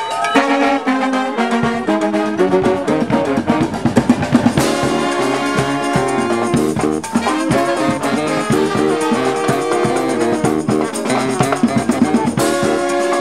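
Brass-band music with trumpet and trombone lines over a drum beat that comes in about a second and a half in.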